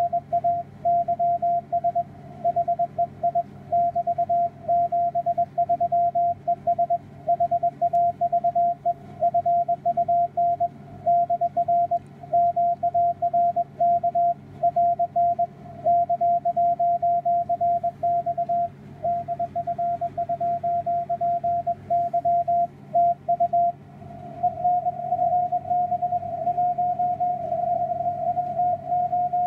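Amateur radio Morse code (CW) signal on the 160-metre band, heard through a receiver as a keyed tone of about 700 Hz beeping out dots and dashes. About three quarters of the way through the keying stops, leaving a wavering hiss at the same pitch: band noise through the narrow CW filter.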